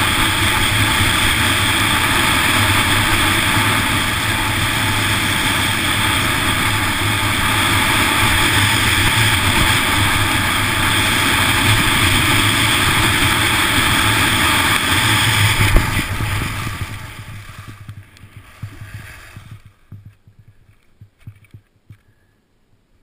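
Wind rushing over a GoPro HERO2 carried at downhill racing speed, together with skis running on hard snow. About sixteen seconds in it fades away quickly as the skier slows to a stop, leaving only a few faint ticks.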